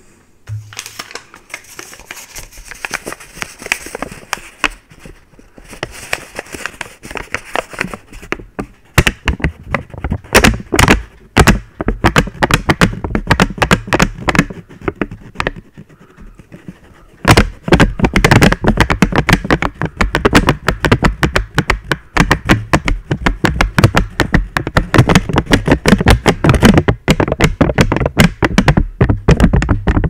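A small sheet of green paper crinkled and rubbed right against a microphone's grille. Soft rustling at first grows into dense, rapid crackling, much louder from a little past halfway.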